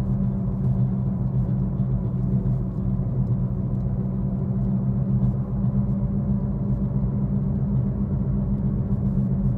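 Steady low drone and road rumble inside a 2013 Ford Focus's cabin while driving: the hum of a worn left-front wheel bearing.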